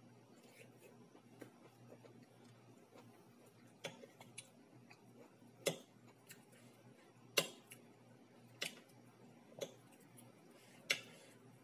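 Eating sounds at a table: about seven sharp, uneven clicks of a metal fork against a ceramic plate, spread a second or so apart over the second half.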